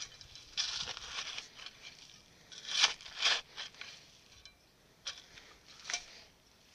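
Garden spade digging into gravelly soil: a run of crunching, scraping stabs, the loudest two close together about halfway through, then two more near the end.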